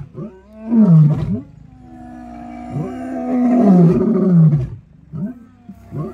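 Lions growling and snarling at each other in a dominance squabble. A short snarl falls in pitch about a second in, then comes a long drawn-out growl that drops in pitch near its end, and a few short grunts follow.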